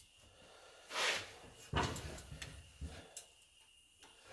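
Hand-operated sheet metal brake bending a small steel patch piece: a short scraping swish about a second in, then a few dull metal clunks.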